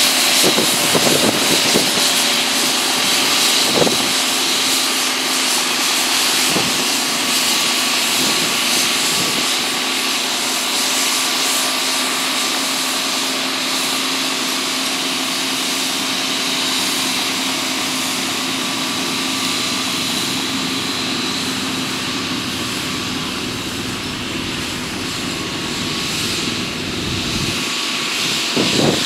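New Holland tractor running steadily under load, driving a McConnel boom-mounted circular-saw head that gives a constant high whine over the engine. A few short, sharper bursts break through as the blades cut branches, one just before the end.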